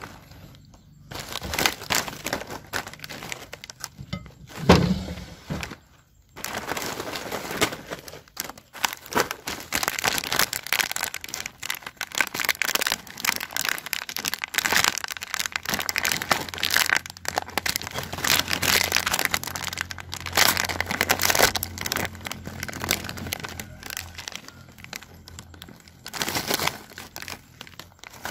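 Foil-lined plastic snack packets crinkling as they are handled, torn open and shaken out, with a louder thump about five seconds in.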